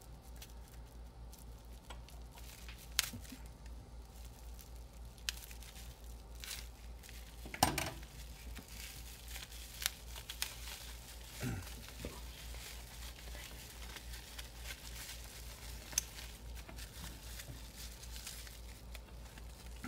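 Bubble wrap crinkling and tape tearing as hands cut and unwrap a small wrapped lock, with scissors snipping and a few sharp clicks.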